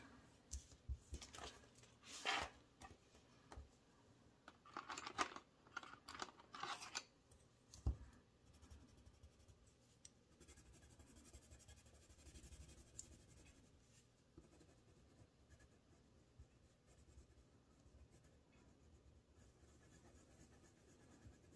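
Faint rustling and scratching of paper cash and an envelope being handled, in short bursts over the first seven seconds, with a soft thump about eight seconds in and only faint scratching after that.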